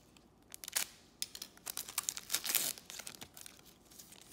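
Plastic trading-card pack wrapper crinkling and rustling as it is slit open with a utility knife and pulled apart, in a run of sharp crackles that is densest about two seconds in.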